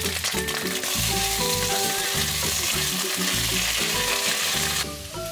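Food sizzling in a hot frying pan, a steady hiss that stops near the end. Background music with a beat plays throughout.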